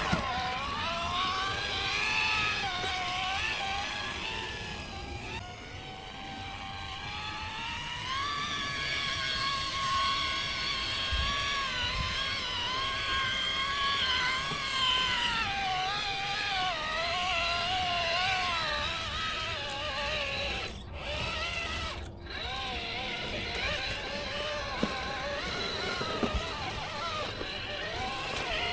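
Electric motor and geared drivetrain of an RC rock crawler whining. The pitch rises and falls with the throttle as it climbs over rocks, and the sound cuts out briefly twice near the end.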